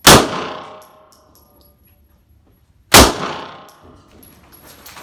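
Two pistol shots about three seconds apart, each ringing out in a long decay.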